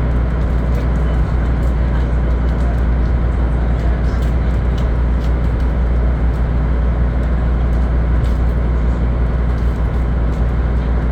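Sightseeing cruise boat's engine running with a steady low drone, heard on board, with a noisy rush over it.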